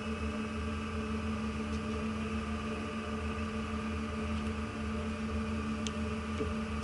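Steady drone of a ship's machinery, with a low hum and several steady tones that do not change, and one faint click about six seconds in.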